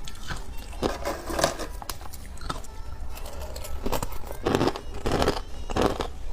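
Repeated crisp crunches of someone chewing crunchy food close to the microphone.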